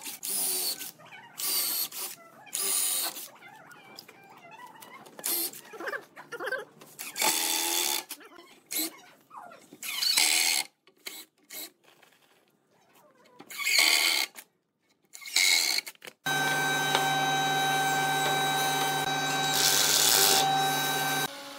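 Red cordless drill driving screws into plywood cabinet panels in a series of short trigger bursts. After about sixteen seconds it gives a steady run of about five seconds.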